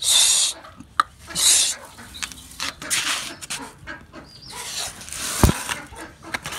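Chickens clucking and squawking in short bursts, with a sharp knock about five and a half seconds in.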